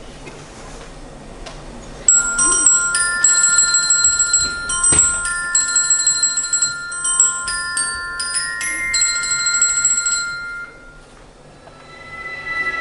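Faint hiss for about two seconds, then the routine's music begins: an intro of ringing bell-like tones, as of a glockenspiel, that dies away about ten seconds in before the music builds again near the end.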